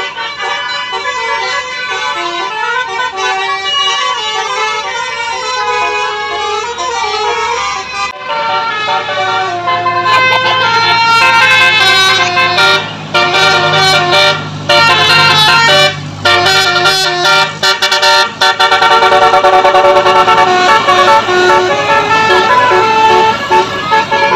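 Bus 'basuri' musical air horns (telolet) playing quick melodies of stepping notes, with an engine running underneath. The sound changes abruptly about eight seconds in.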